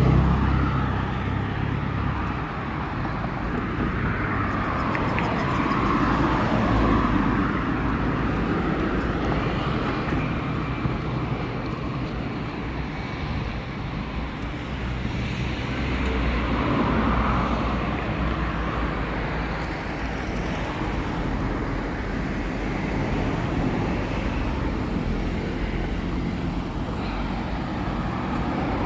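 City street traffic: a steady rumble of cars and other vehicles going by, swelling louder twice as vehicles pass close.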